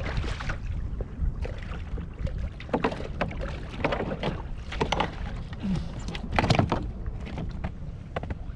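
Small waves slapping against a fishing kayak's hull, with a steady low wind rumble on the microphone. Scattered knocks and rustles come from the line and rod being handled, with a louder cluster of them about six seconds in.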